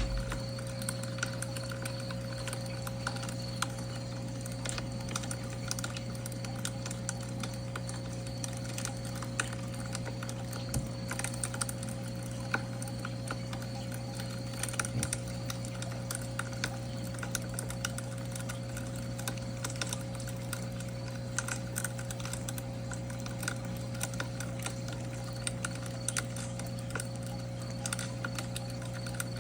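Campfire crackling, with small irregular pops and clicks over a steady low hum.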